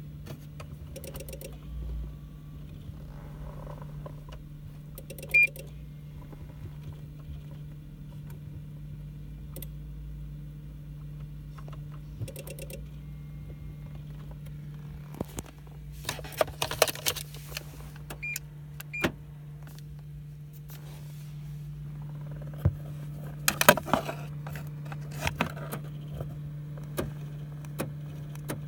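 Renault Mégane that won't start from an electronic fault: a steady electrical hum, with three short beeps in the first half and two bursts of clicking and rattling later on.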